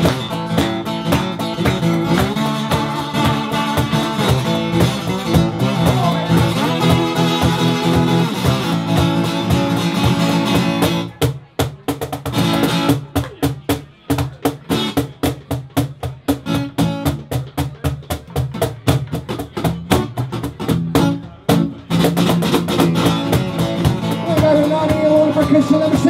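Live acoustic blues instrumental: acoustic guitar strumming and cajón beats under a harmonica playing held, bending notes. About eleven seconds in, the held notes drop out and only the sharp guitar and cajón hits carry the rhythm, until the full sound comes back in near the end.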